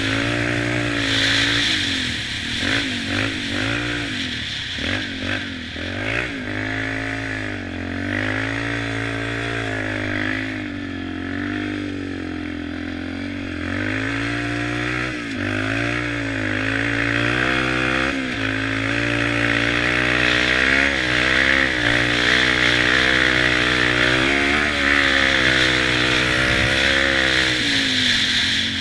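Single-cylinder four-stroke engine of a 2006 Yamaha Raptor 350 quad running under a changing throttle as it is ridden, its pitch rising and falling again and again. The pitch wavers quickly a few seconds in.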